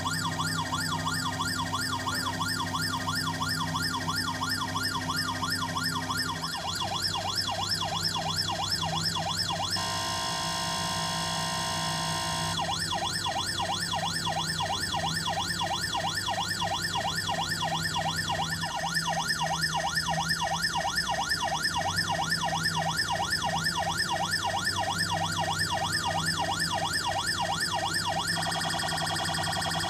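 Electronic siren sound from a toy ambulance lantern, playing a fast up-and-down yelp over and over. About ten seconds in it switches for a couple of seconds to a steadier tone, and near the end to a quicker warble.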